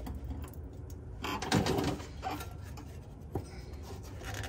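A hand working a fuel line off its quick-connect fitting with a disconnect tool: a short scrape and rustle a little over a second in, then a light click about three and a half seconds in.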